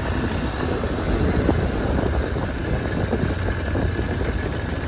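Off-road farm vehicle engine running steadily while being driven, a dense low rumble.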